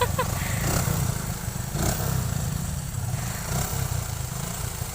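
Motorcycle engine running over a rough dirt track, a steady low rumble with a sharp knock about two seconds in.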